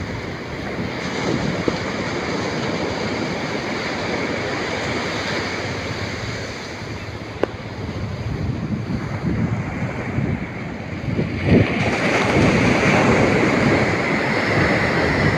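Ocean surf washing onto a beach in a steady hiss, with wind buffeting the microphone. A wave breaks louder about twelve seconds in.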